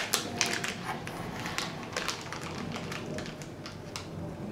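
Plastic snack-cake wrapper being handled and opened, giving quick crinkling clicks and crackles that are thickest in the first couple of seconds and then thin out.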